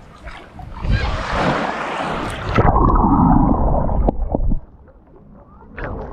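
Sea water splashing and sloshing. About two and a half seconds in, the sound turns suddenly muffled and low, with a gurgling rumble as heard underwater, and it dies away about four and a half seconds in.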